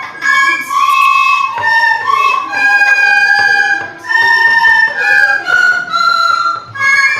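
Recorder playing a simple melody of held notes, one note at a time, with a short break about four seconds in.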